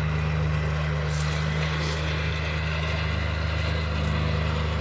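A steady low mechanical hum, like a motor or engine running, without change in pitch or level.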